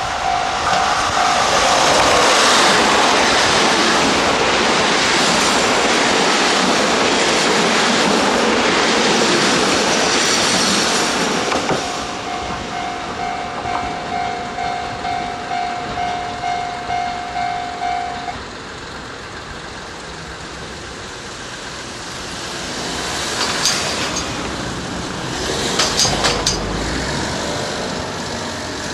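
JR Central KiHa 85 series diesel limited express running past over the rails for about the first twelve seconds. A level crossing's electronic warning bell rings in steady pulses, about two a second, and stops about eighteen seconds in. Near the end a road vehicle passes with a few knocks and a low rumble.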